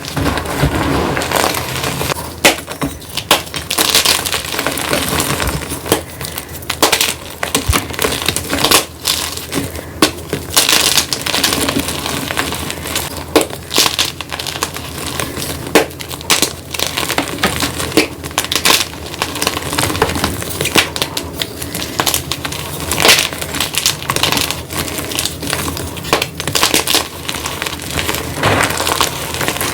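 Blocks of gym chalk being crushed and crumbled: a dense, crunchy, glassy crackling with frequent sharp snaps.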